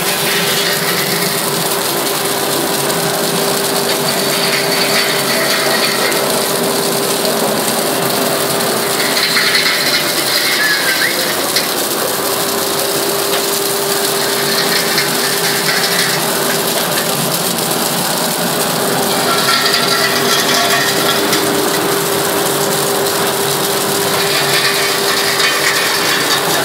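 Flake ice machine running: a steady mechanical grinding and rattling over a constant hum, with a higher hiss swelling every few seconds.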